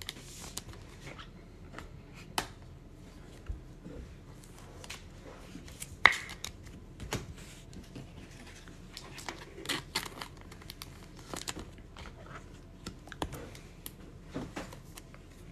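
Trading cards being handled at a table: scattered soft clicks and rustles of slick chrome cards being slid, set down and fitted into a clear plastic toploader, with one sharper click about six seconds in.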